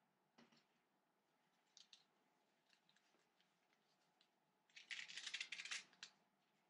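Handling of a plastic accessory and its packaging: a few faint clicks and taps, then, about five seconds in, a dense crackling rustle lasting just over a second.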